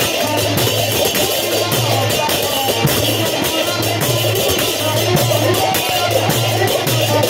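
Devotional kirtan music: a man sings into a microphone over a two-headed barrel drum (mridanga/khol) and small hand cymbals keeping a steady beat.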